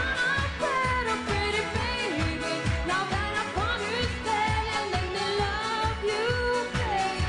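A singer sings a winding, ornamented melody over a pop band backing with a steady beat.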